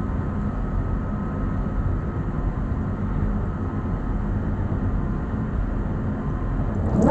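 Steady low mechanical drone with a faint thin whine over it, typical of ship's deck machinery. Right at the end a squeal starts, rising sharply in pitch, as the lifeboat's davit winch begins to pay out the falls to lower the boat.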